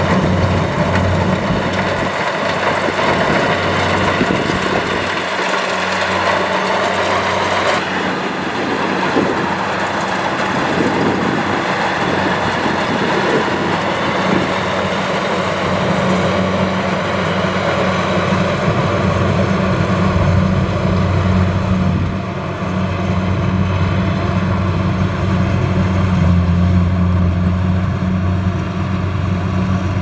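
Kubota DC70 rice combine harvester running steadily while cutting and threshing rice: a loud, even engine hum with machinery noise over it. The higher machinery noise drops abruptly about eight seconds in.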